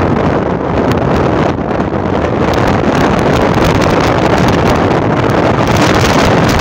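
Steady wind buffeting the microphone over the road noise of a car driving along a rough rural road, with frequent small crackles throughout.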